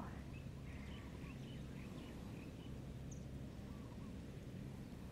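Faint outdoor ambience: a steady low background hum with scattered, faint bird chirps.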